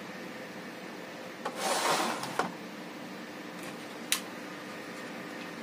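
Clear plastic parts packaging being handled: a crinkly rustle about a second and a half in, lasting about a second, then one sharp click a little after four seconds, over a faint steady hum.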